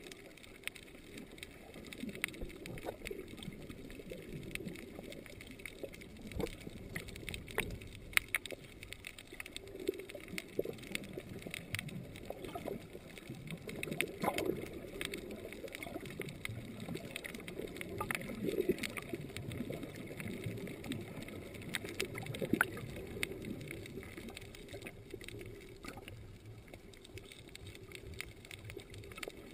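Underwater sound over a coral reef, heard through a camera's waterproof housing: a steady muffled wash of water with scattered sharp clicks and crackles throughout.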